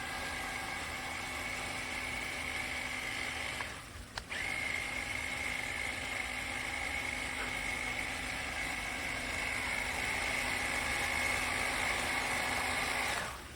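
Electric drive motor of a 1:16-scale RC monster truck whining steadily as it runs. It cuts out for a moment about four seconds in, with a click, then whines on and stops just before the end.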